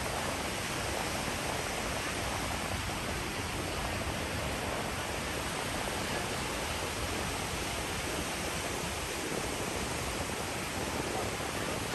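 Steady, even rushing noise of beach surf and wind, with no distinct events.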